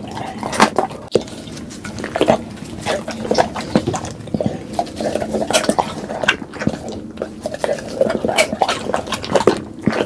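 Pit bull eating and chewing, with irregular wet crunches and clicks, some against a bowl.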